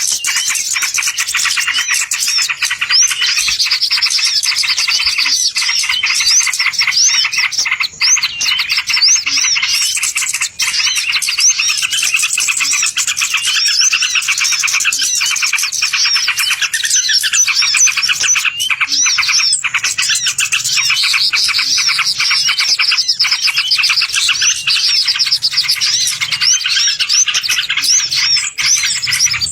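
Small songbirds chirping and trilling rapidly and without pause, many quick notes overlapping, in a bird-lure (pikat) recording.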